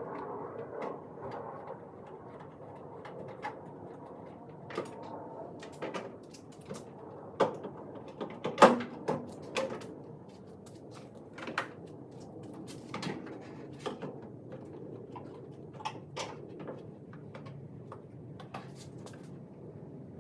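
Scattered clicks and knocks from hands and tools working on pickup-truck taillight assemblies, the loudest knocks coming about eight to nine seconds in.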